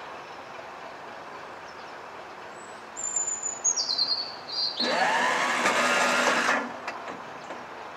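Birds chirping, then about five seconds in a BR Class 37 diesel locomotive's air horn sounds once for nearly two seconds, rising in pitch as it comes on and then holding steady before cutting off.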